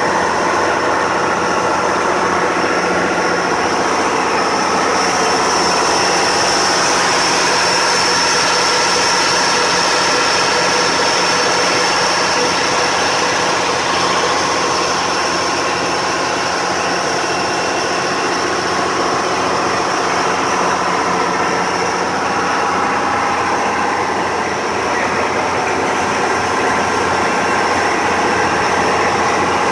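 Tour boat's engine running steadily at cruising speed, with water rushing and spraying along the hull. The hum holds an even pitch throughout.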